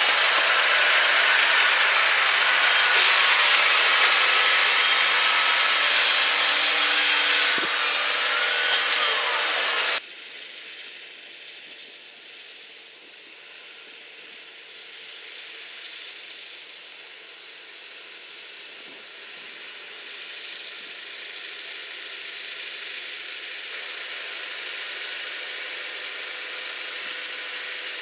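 Case IH tractor running as it pulls a slurry injector fed by a drag hose, steady and loud up close. About ten seconds in the sound cuts abruptly to a quieter, more distant tractor running, which slowly grows louder.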